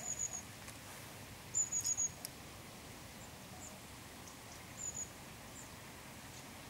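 A small bird calling in quick runs of very high, thin chirps, three or four notes at a time: once at the start, again about a second and a half in, and a short pair near the end. Faint steady outdoor hiss underneath.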